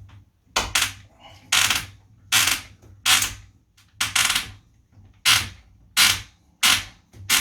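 Small door-handle screws being driven by hand with a screwdriver into pilot holes in a door, giving a short grating burst with each turn of the wrist, about one every 0.7 seconds.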